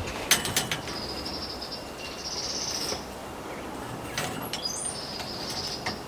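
A bird's high, rapid trilling song, in two bouts about two seconds long, with a short rising whistle between them. A few light clicks and knocks come about half a second in and again past the four-second mark, from a metal bandsaw blade being handled.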